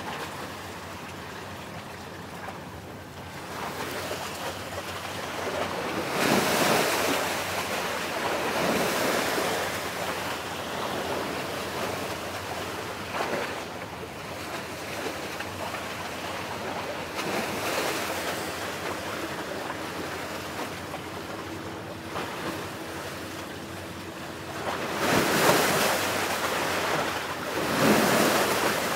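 Sea waves washing on the shore, swelling and fading every few seconds, with the biggest surges near the start and near the end, and wind on the microphone.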